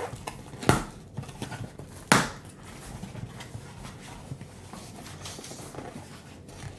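Cardboard box being cut and opened by hand: two sharp rips or knocks, one just under a second in and a louder one about two seconds in, then quieter scraping and rustling of cardboard.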